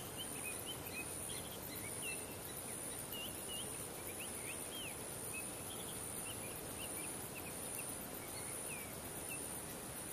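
Birds chirping, many short whistled calls and quick sweeps scattered throughout, over a steady high-pitched insect drone and a low background hiss.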